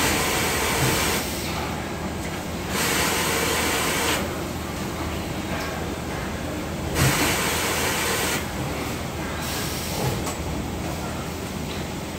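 Factory floor machinery noise: a steady low hum of running equipment, with a hiss that swells and drops away again about four times.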